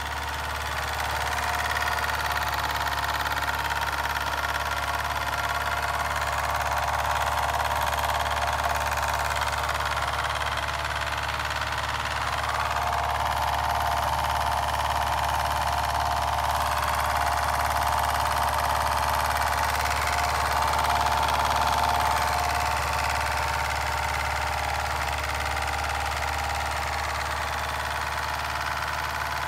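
Mamod SP5 toy steam engine running steadily under steam, a fast, even mechanical chuffing and clatter from its small cylinders and spinning flywheel.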